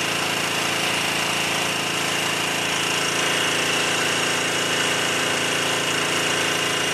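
Engine on an electrofishing boat running steadily: a loud, even drone with a faint high whine above it.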